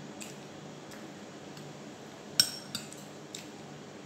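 Metal spoon clinking against a ceramic plate during eating: a sharp ringing clink a little past halfway, then two lighter taps, with faint clicks near the start.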